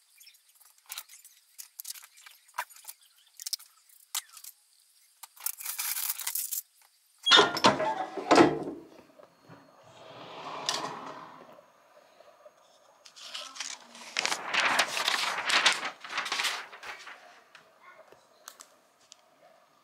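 Handling sounds at a heat press: a T-shirt and sublimation transfer paper being laid out and moved, with scattered clicks and rustles, a louder clatter about seven seconds in, and a longer stretch of paper rustling near the end.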